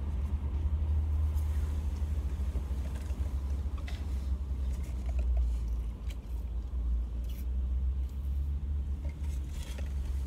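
Steady low rumble of a car idling, heard inside the cabin, with a few faint clicks over it.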